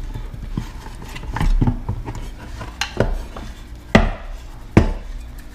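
Irregular clicks and knocks, about five of them, from a Johnson outboard recoil starter's pulley and housing as the pulley is twisted by hand to wind up the rewind spring's tension.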